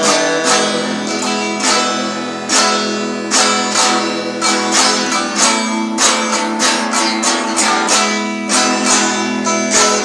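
Acoustic guitar strummed in a steady rhythm, a guitar-only break between sung lines.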